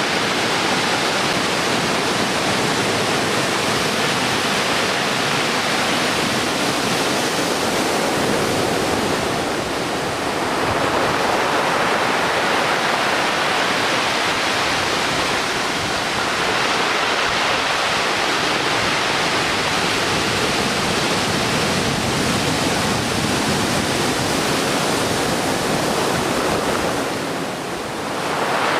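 Heavy surf from a typhoon swell breaking and washing ashore in a continuous loud rush, easing briefly about ten seconds in and again near the end.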